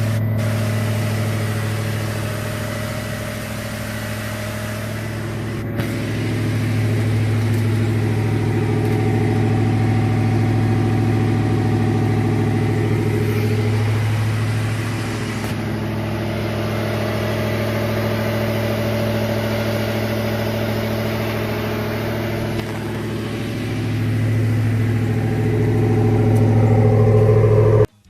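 2007 Ford F-150's 5.4-litre V8 running on a drive, its note rising and easing with the throttle and loudest near the end. It runs with a new spark plug in cylinder 1, fitted to cure a misfire caused by a broken electrode.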